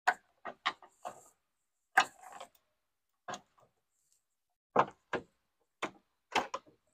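Irregular short clicks and knocks, about a dozen in a few clusters, from hands and a tool handling hard plastic trim and metal around the tailgate hinge.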